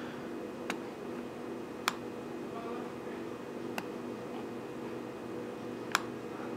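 Four isolated sharp clicks from a Chromebook being operated by hand, one every second or two, over a steady low hum.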